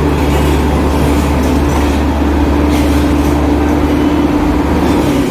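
Heavy diesel earthmoving machinery running steadily, with a strong, even low hum and a steady tone above it.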